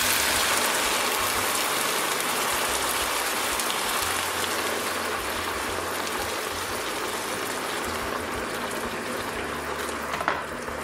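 Hot stock poured into a hot frying pan of toasted rice and mushrooms, sizzling and bubbling, the hiss slowly dying down as the liquid takes the heat. This is the first ladle of stock going into the rice. A single sharp click near the end.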